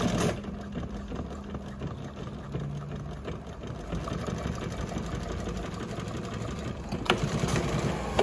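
JUKI LU-1510N-7 walking-foot industrial sewing machine running steadily, stitching through a thick stack of fabric layers, with a few sharp clicks near the end.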